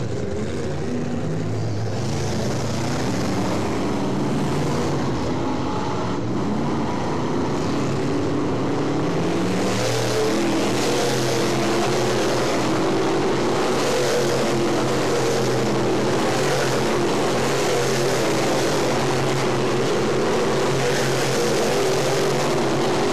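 Several dirt late model race cars' V8 engines running together as they lap a dirt oval, a steady droning blend of engines whose pitch wavers as the cars go through the turn; it gets somewhat louder about ten seconds in.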